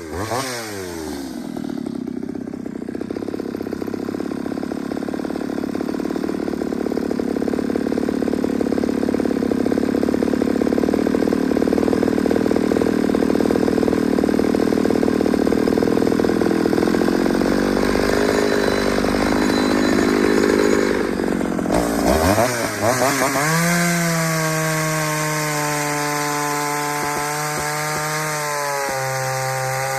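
Ported two-stroke Pioneer chainsaw cutting into wood: the engine note drops as the chain bites, runs loaded through the cut for about twenty seconds, then rises back to a steady high wide-open whine once the saw comes free of the wood.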